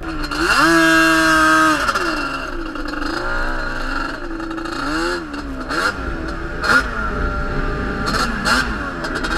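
Sport quad engine revving up and down as the throttle is opened and closed while riding. It holds a high rev from about half a second to two seconds in, drops, then climbs again around the middle, with wind rumbling on the microphone underneath.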